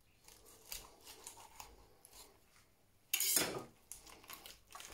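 Knife cutting and scraping through the crisp skin and joints of a roast pheasant on a wooden board: scattered small clicks and scrapes, then one louder scrape about three seconds in.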